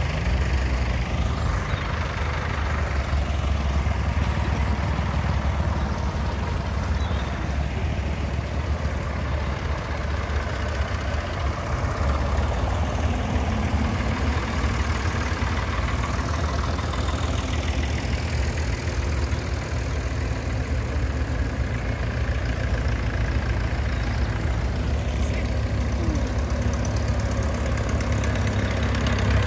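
Tractor engines running as a line of tractors drives past one after another, a steady low engine sound throughout. A small blue Ford tractor passes about halfway through.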